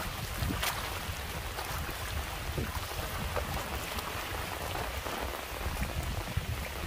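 Steady rain falling: an even hiss over a low rumble of wind on the microphone.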